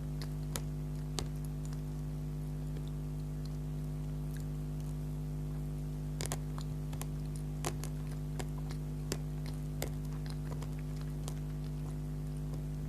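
Close-miked mouth sounds of someone chewing soft bakery food: scattered sharp, wet clicks and smacks a second or more apart. A steady low electrical hum runs underneath.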